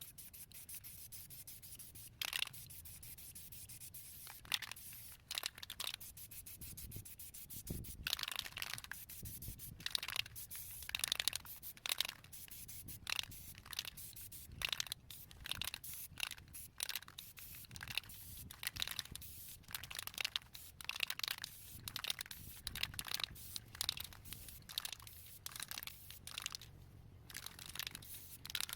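Aerosol spray paint can spraying in many short, irregular bursts of hiss.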